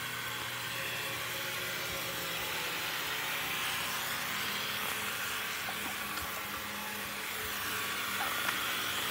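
Water running and spraying across patio pavers: a steady hiss, with a faint low hum underneath.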